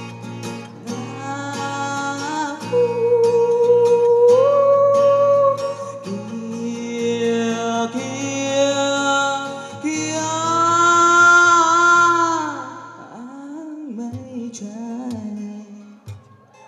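A male voice sings long held notes over a strummed acoustic guitar. About thirteen seconds in the voice stops, and the guitar carries on quietly alone.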